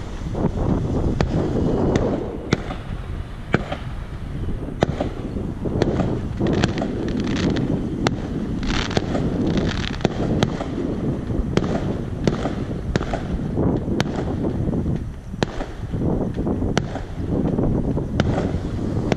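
Distant New Year's fireworks going off: many sharp bangs and cracks at irregular intervals over a constant low rumble.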